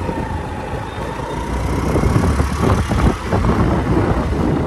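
Wind and road noise of a moving motor scooter heard from the pillion seat, with wind buffeting the phone's microphone. The noise is heaviest low down and runs steadily.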